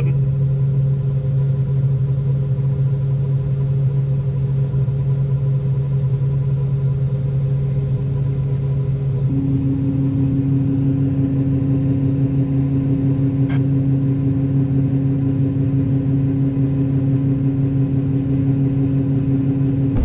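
John Deere combine running, heard from inside the cab as a steady low hum while the unloading auger empties soybeans into a grain trailer. About nine seconds in, a second, higher steady tone joins the hum.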